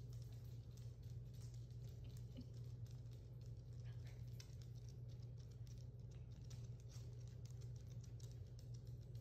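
Faint, irregular clicking of small Maltese dogs' claws on a wood floor as they walk about, over a steady low hum.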